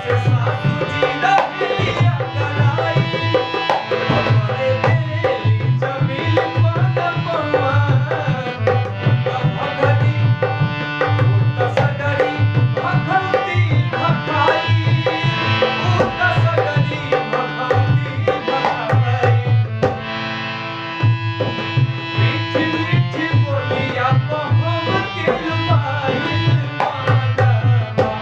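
Dholak played in a fast, steady rhythm, with a harmonium and a man singing over it. About twenty seconds in, the drum drops out for a moment, leaving the harmonium's held chord and the voice, then comes back in.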